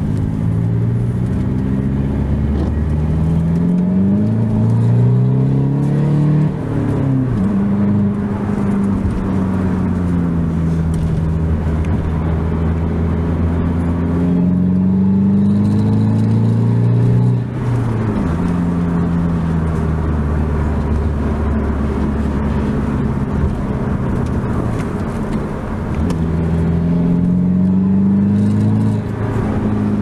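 Alfa Romeo Giulietta 1.6 JTDm2 four-cylinder turbodiesel with its electric exhaust bypass valve open, heard from inside the cabin while driving. The engine note climbs as the car accelerates and drops at each of several gear changes, with steadier cruising stretches in between.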